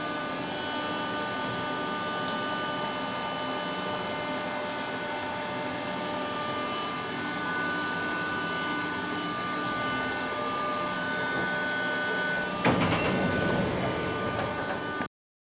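Inside an elevator car during its ride: a steady hum with a few held whining tones. About twelve seconds in, a louder rumble of the doors sliding starts suddenly and runs for a couple of seconds, then cuts off.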